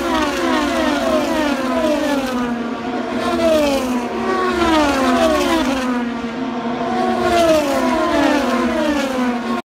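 Race cars at full speed streaming past the grandstand one after another, each engine's high whine dropping in pitch as it goes by. It cuts off suddenly near the end.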